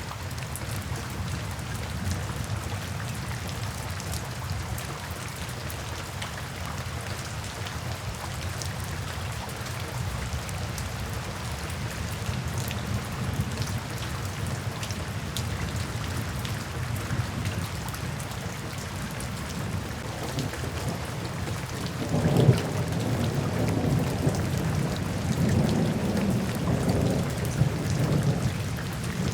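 Steady light rain falling into puddles, with fine ticks of individual drops. About 22 seconds in, a low rumble of thunder rises and keeps rolling.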